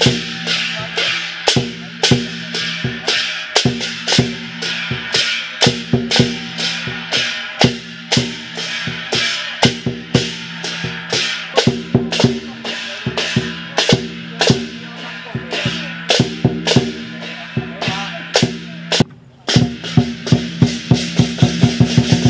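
Percussion music: drums and other struck percussion beating a steady pulse of about two strikes a second over a sustained low tone, quickening into a fast roll near the end.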